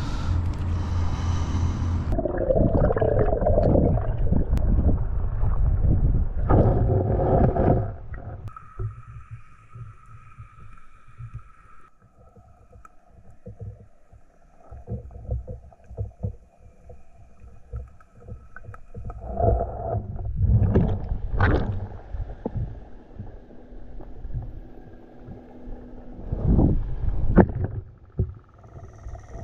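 Water sloshing and surging against the microphone in the surf, loud and churning for the first several seconds, then quieter with faint steady tones and a few renewed surges.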